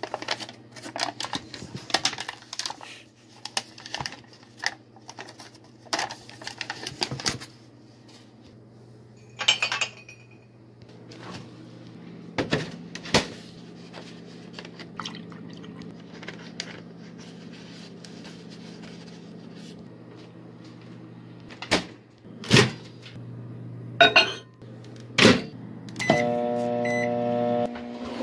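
A microwave oven running with a steady low hum, under scattered clinks and knocks of dishes and containers being handled. Near the end a louder pitched tone sounds for about two seconds and the hum stops.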